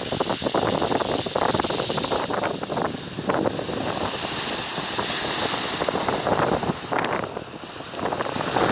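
Strong wind buffeting the microphone over rough surf on a shingle beach, with many small clicks through it.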